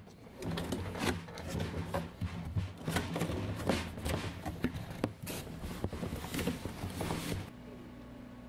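Cardboard shipping box being opened by hand: tape and flaps pulled, cardboard scraping and crackling in many quick clicks and rubs, stopping abruptly near the end.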